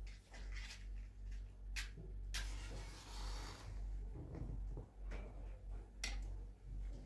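Scattered knocks and clatters of kitchen handling, with a short hiss about two and a half seconds in that lasts about a second, over a steady low hum.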